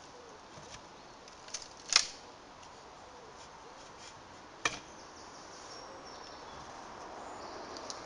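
Ash pole cracking as it is split lengthwise with a froe in a cleaving brake: a small snap and then a louder crack about two seconds in, another sharp crack near the middle, and one more at the very end.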